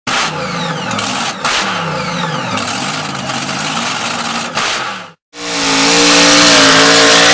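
Engine revving up and down several times, with a few sharp clicks. After a brief cut about five seconds in, an engine held at steady high revs, louder.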